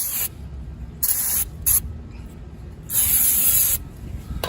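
Aerosol brake cleaner hissing onto a new brake rotor in short spray bursts, the longest near the end. It is washing off the oil that new rotors are packed in.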